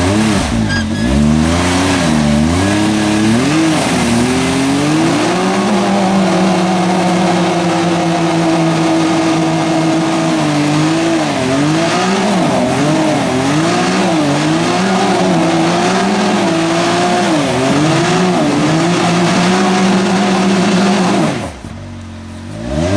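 Side-by-side UTV engine revving up and down with the throttle, blipped repeatedly and held steady in long stretches; the engine drops off briefly near the end, then revs up again.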